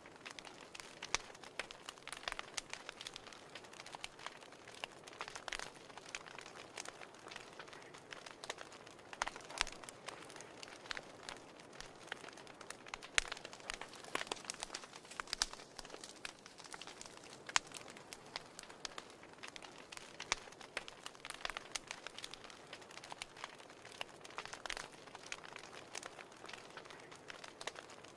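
Wood fire burning in a fireplace, crackling: many irregular sharp pops and snaps over a soft steady hiss.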